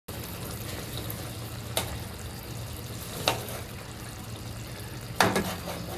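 Fish roe curry simmering and sizzling in a non-stick pan as it is stirred with a silicone spatula: a steady wet bubbling, with three sharper knocks of the spatula against the pan about two, three and five seconds in. The last knock is the loudest.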